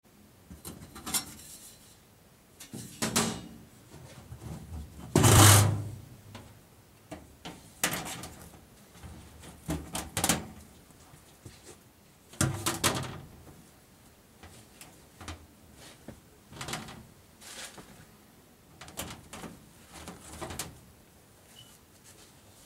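Irregular handling noises: clacks, scrapes and rustles as a reloadable furnace filter frame is worked by hand. The loudest is a longer scrape a little over five seconds in.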